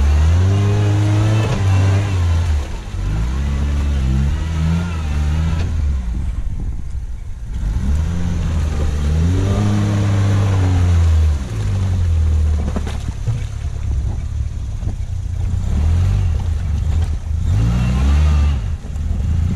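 Suzuki SJ410's small three-cylinder petrol engine revving in repeated bursts as the 4x4 crawls through deep snow and mud, its note rising and falling about four times, with a lull around a third of the way in.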